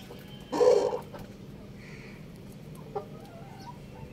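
Rooster giving one short, loud call about half a second in, followed by a faint softer call and a light tick.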